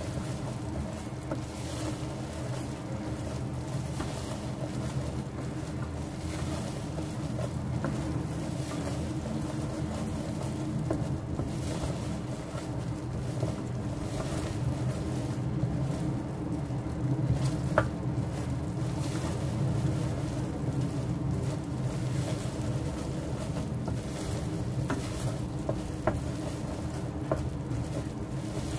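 Wooden spatula stirring peanuts through bubbling brown-sugar syrup in a stainless steel saucepan, with a few sharp knocks of the spatula against the pan, over a steady low hum.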